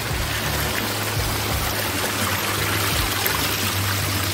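Water splashing and trickling steadily over rocks in a koi pond's waterfall, with low background music underneath.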